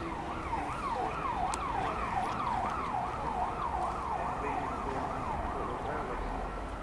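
Emergency vehicle siren sweeping rapidly up and down in pitch, about two sweeps a second, fading away near the end.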